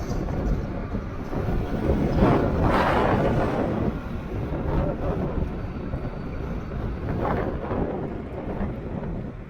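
Strong gusty wind buffeting the microphone of a rider moving at speed, swelling loudest about two to three seconds in and again more briefly near the end.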